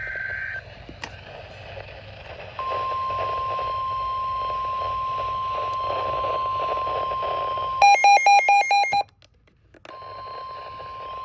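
NOAA Weather Radio 1050 Hz warning alarm tone held steady for about five seconds over radio hiss, followed by about a second of rapidly chopped, buzzy digital data tones, a brief dead gap, and the steady tone again near the end. A short higher beep sounds at the very start.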